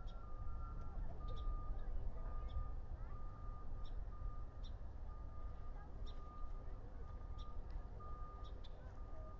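Distant vehicle reversing alarm beeping steadily, one beep roughly every three-quarters of a second, over a constant low rumble. Faint short high chirps are scattered throughout.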